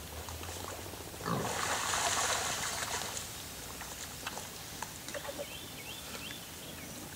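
Wild hog giving one loud, harsh squeal of about two seconds, starting just over a second in.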